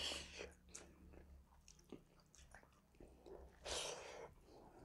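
Faint chewing of a mouthful of rice and chicken, with small scattered mouth clicks, and a short breathy hiss near the end.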